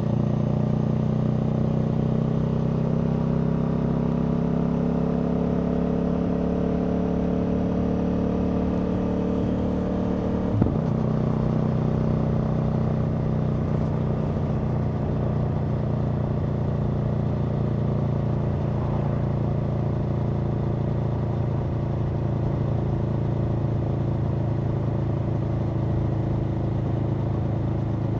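Aprilia Tuono V4's V4 engine pulling under load, its pitch climbing slowly for about ten seconds, then a quick gear change with a sharp click, after which it runs steadily at a slightly lower pitch.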